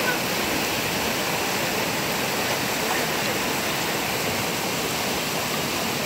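Waterfall cascading over granite rock: a steady, even rush of falling water.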